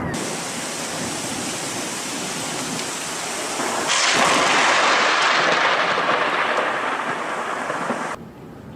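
Steady rain hiss, then about four seconds in a sudden loud thunderclap that rolls on and slowly fades before cutting off near the end.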